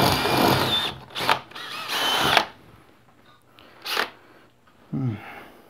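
Cordless drill boring a 6 mm hole overhead into an old plaster ceiling, its motor whining up to speed, then a couple of shorter bursts. The bit goes through into an empty void with nothing solid behind the plaster.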